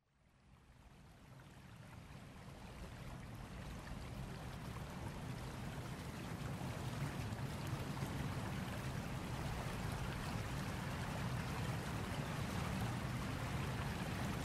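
Steady rushing noise of water, with no tone or rhythm, fading in from silence over the first few seconds and then holding level.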